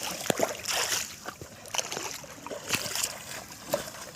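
Shallow water splashing and sloshing irregularly as people wade and work in a drain, with scattered short knocks.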